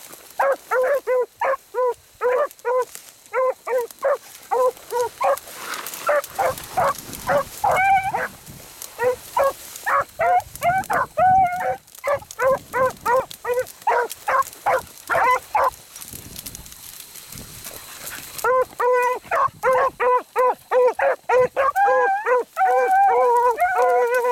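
Beagles baying on a rabbit's track: a fast, steady run of short, pitched barks. It drops out for about two seconds some two-thirds through, then starts again.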